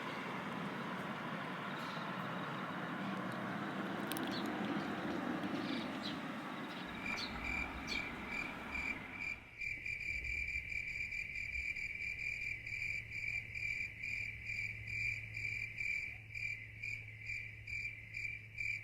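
An insect singing a steady, high pulsing chirp, about three pulses a second, with a rushing noise beneath it that cuts off suddenly about halfway through.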